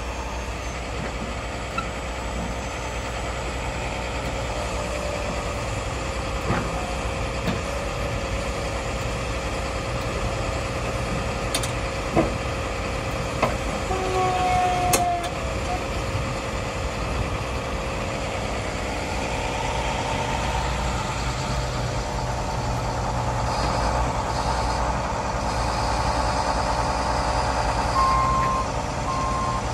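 A Ford F-250 pickup's engine idles steadily, with a few short clicks and brief whines around the middle. Near the end a reversing alarm starts beeping at a steady pitch as the truck backs up.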